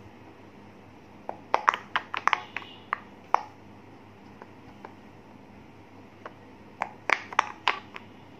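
Silicone pop-it fidget toy bubbles being pushed through by a fingertip, each giving a short sharp pop. There is a quick run of about ten pops in the first few seconds, a few single pops, then another run of about six near the end.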